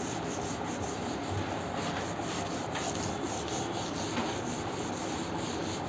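A cloth wiping marker writing off a whiteboard: a steady dry rubbing.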